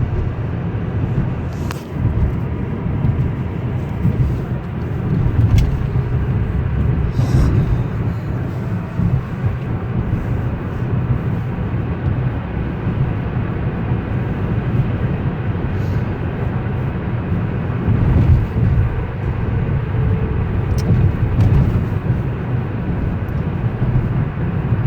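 Steady engine and road noise inside the cabin of a 2012 Hyundai Elantra cruising at about 40 mph.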